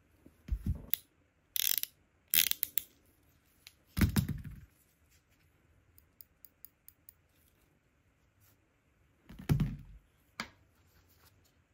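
Hand tools being set down one at a time on a tabletop: a roll of masking tape, a pair of metal tweezers and a utility knife, giving a series of thuds and clacks. About six seconds in comes a quick run of light clicks.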